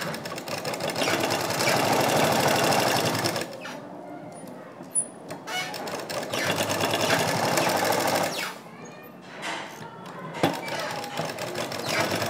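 Black domestic sewing machine stitching small fabric pieces, running in two long runs with a quieter pause between, a sharp click during a second pause, then starting up again near the end.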